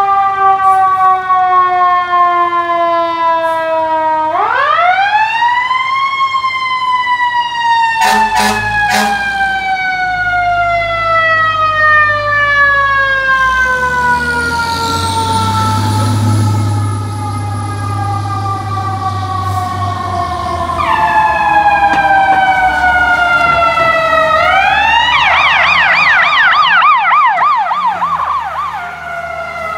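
Fire truck siren wailing in long glides: it rises sharply, then falls slowly over many seconds, then rises again. There are a few short blasts about eight seconds in, and the truck's engine is loud as it passes. Near the end a second, fast warbling siren sounds over the falling wail.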